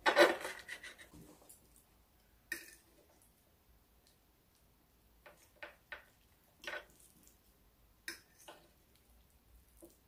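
Knife and fork on a plate while cutting into a soft baked tomato pie: a loud scraping rub in the first second, then a scattering of short clicks and taps.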